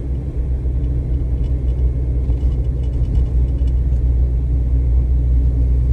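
Steady low rumble of a car driving along a snow-covered highway: road and engine noise with no sudden events.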